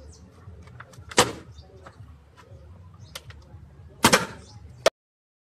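Two loud smacks of a plastic water bottle being swung and hitting, about a second in and again about four seconds in, with a short sharp knock just before the sound cuts off suddenly.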